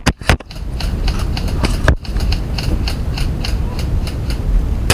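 Rapid rhythmic knocking, about five a second, over a heavy low rumble, with brief dropouts near the start and about two seconds in.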